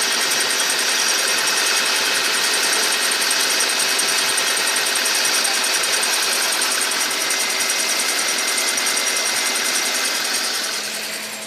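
Car engine idling steadily, heard close up, with a high-pitched whine that the owner puts down to the drive belt. It fades away near the end.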